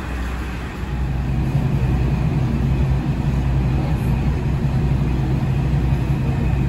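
KiHa 40 diesel railcar's engine running, heard from inside the carriage: a steady low drone that grows louder about a second in.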